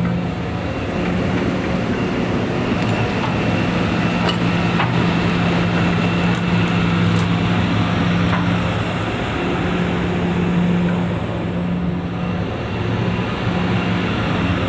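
Hitachi EX355 excavator's diesel engine running steadily, with a few light clicks or clanks in the middle.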